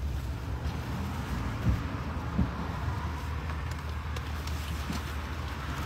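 Steady low rumble of a Chevrolet vehicle's engine running, heard from inside the cabin.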